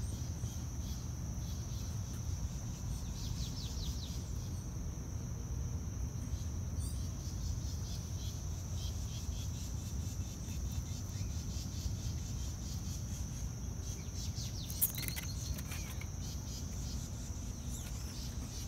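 Outdoor ambience: a steady high-pitched insect drone throughout, over a low background rumble, with a few brief bird chirps scattered through.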